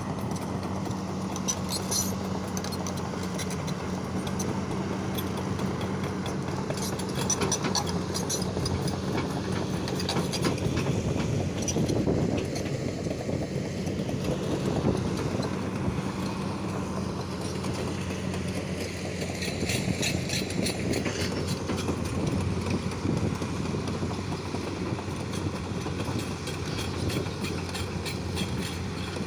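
XCMG 250LC crawler excavator's diesel engine running steadily, with bursts of metallic clatter from the machine at several points.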